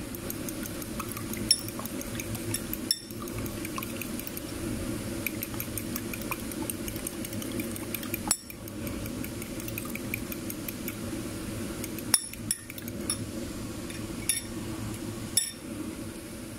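A metal fork beats eggs in a glass bowl, ticking rapidly and lightly against the glass, with a few sharper clinks now and then. A steady low hum runs underneath.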